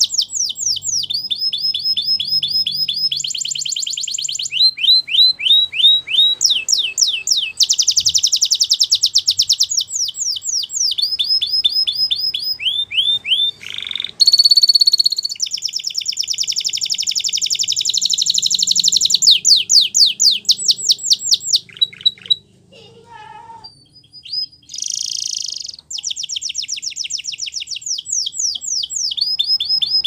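Spanish Timbrado canary singing: a long, high-pitched song of fast repeated trills and quick rising and falling phrases, with a short quieter break about three quarters of the way through before the song starts again.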